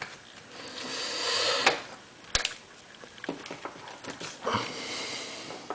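Handling noises from the plastic parts of a fischertechnik robot: soft rubbing and rustling with a few sharp clicks, the loudest about two seconds in.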